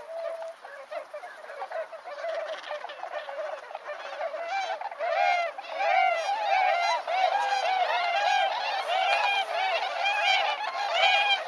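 A flock of whooper swans honking: sparse calls at first, then from about four seconds in a busy chorus of short, overlapping honks.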